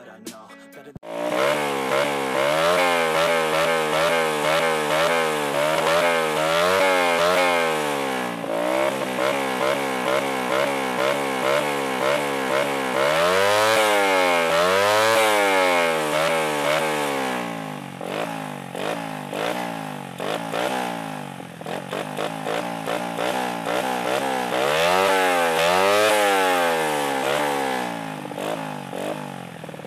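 Tuned Suzuki Shogun 110 four-stroke single, built for high compression with a 54.5 mm piston, being revved through an aftermarket exhaust. It comes in about a second in with repeated throttle blips that rise and fall, holds longer high revs around halfway and again near the end, and drops back lower at the very end.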